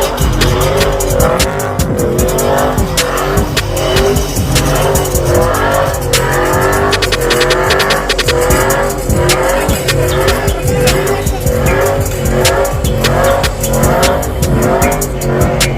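Tyres squealing in a burnout, a wavering howl that goes on throughout, mixed with music that has a steady beat.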